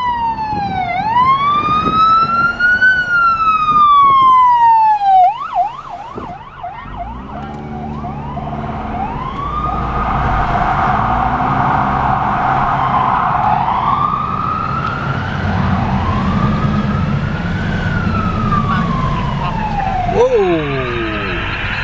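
Ambulance siren cycling through its tones: a slow rising-and-falling wail, a short burst of fast yelp about five seconds in, a rapid warble, then the wail again, with a few quick lower-pitched falling sweeps near the end. A steady low rumble of engines and traffic runs underneath.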